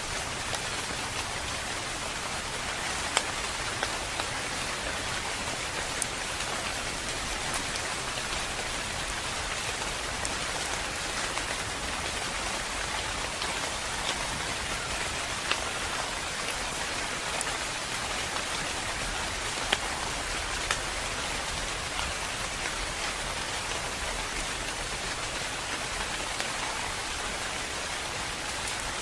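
Steady, calm rain falling, an even hiss with scattered sharper drips of individual drops striking a surface.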